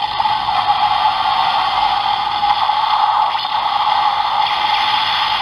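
DX Twin Breaker toy's built-in speaker playing its beam-mode finishing-attack effect: a long, steady hissing blast.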